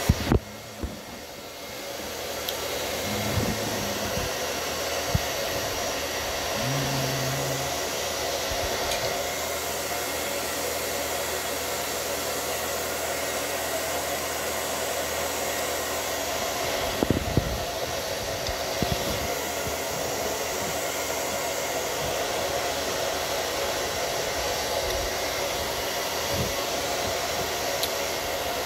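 Steady whooshing of an electric fan-type blower running without change. A few short knocks and clicks come from handling the plastic pudding cup and metal fork, at the very start, a few seconds in, and again about 17 seconds in.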